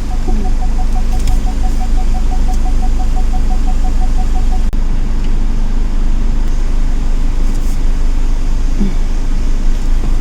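Car running, a steady low rumble heard inside the cabin, with a rapid series of short electronic beeps at one pitch, about seven a second, that stops about four and a half seconds in.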